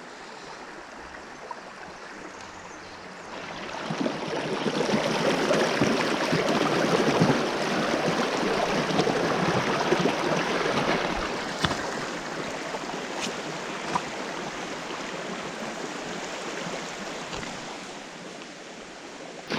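Small creek water rushing over rocks as an even hiss. It swells noticeably about four seconds in and eases off again near the end, with a few faint clicks.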